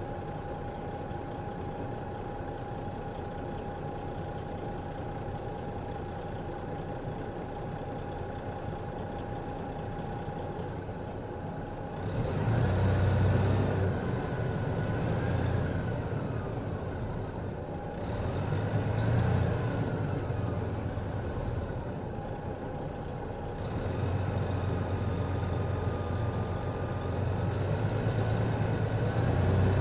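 The Detroit Diesel Series 60 diesel engine of an MCI D4000 coach idles steadily with a thin whine. About twelve seconds in it is revved up twice, each time with a high whine that rises and falls. It then runs at raised revs from about two-thirds of the way through.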